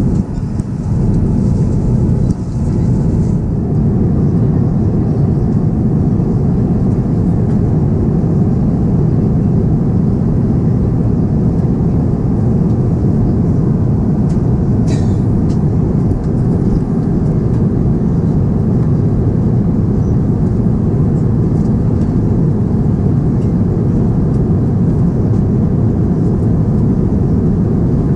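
Steady airliner cabin roar inside an Airbus A350-900 in flight: a dense, even rush of engine and airflow noise, heaviest in the low range, with no break.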